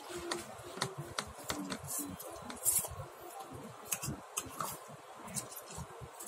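Close-up eating sounds of a person forking up and chewing instant pancit canton noodles: a run of short clicks and wet mouth smacks, with the metal fork tapping and scraping the plate.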